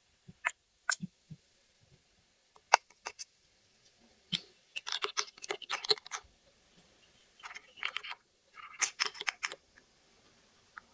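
Small plastic toy pieces being handled: scattered single clicks and taps, then two runs of rapid clattering, one about halfway through and another later on.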